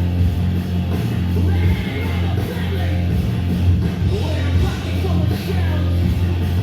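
Loud rock music with singing over a heavy, steady bass.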